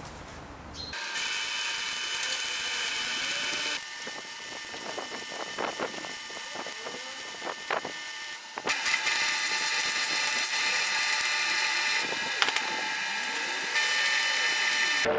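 Electric arc welding on sheet steel: a steady crackling hiss that starts about a second in and changes abruptly a few times, with some sharp pops in the middle.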